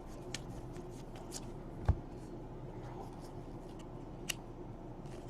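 Football trading cards being handled and sorted, with faint scattered clicks, a light knock about two seconds in and another tick a little past four seconds.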